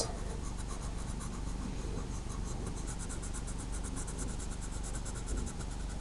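Yellow coloured pencil shading on paper: rapid, even back-and-forth scratching strokes as an area of a drawing is coloured in.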